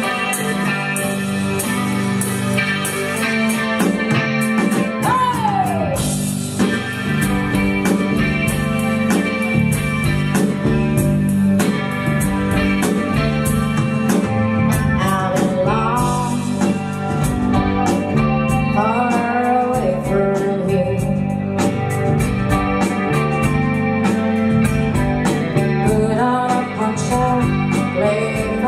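A live band playing a bluesy rock song on electric guitar, bass guitar and drum kit, with a woman singing. Several sliding guitar or vocal glides come through over a steady drum beat.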